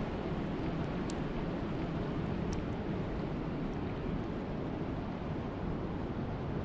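Wind and rain: a steady low rush of wind with rain hiss, even in level throughout, with a few faint sharp ticks.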